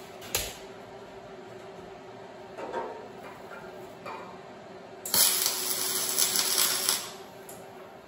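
MIG welder striking a tack weld on a steel lug: a crackling hiss of about two seconds starting about five seconds in.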